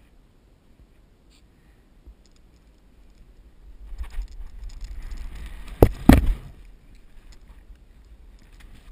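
Wind rushing over the microphone as the rope swing gathers speed and swings out over the river, with two sharp knocks in quick succession about six seconds in.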